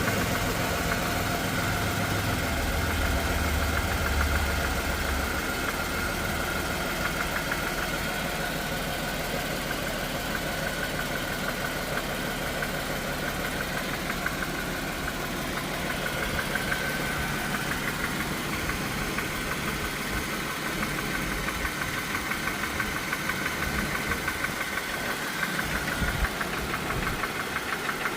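Chrysler 3.6L V6 engine idling with a steady, rapid metallic knock keeping time with the engine: a rod knock from a worn connecting-rod bearing.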